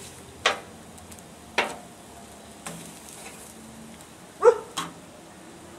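Metal tongs clacking and scraping on a steel BBQ hotplate while cooked prawns are picked up. There are five short clacks, and the loudest two come close together near the end.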